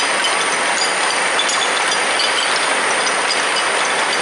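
Braiding machines running: a steady, dense mechanical clatter with faint scattered ticks.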